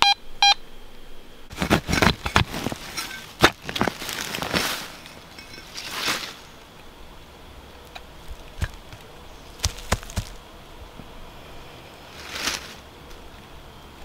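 Fisher F19 metal detector beeping quickly in the first half second, signalling a buried metal target. Then a hand digger is driven into leafy forest soil and roots with a flurry of crunching and snapping strokes, followed by scattered clicks and rustles as the soil plug is pulled open by hand.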